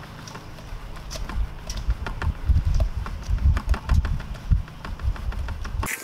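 Wet aircrete slurry sliding and plopping out of a tipped mixing tub into a steel 5-gallon bucket, with irregular dull thuds and sharp knocks, loudest in the middle; it stops abruptly near the end.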